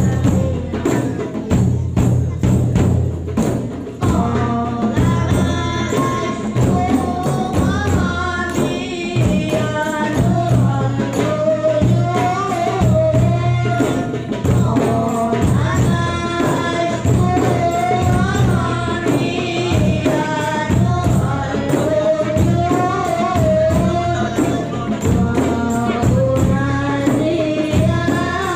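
Large Acehnese frame drums (rapa'i) and a barrel drum beaten by hand in a steady, driving rhythm. From about four seconds in, voices sing a devotional shalawat in unison over the drums.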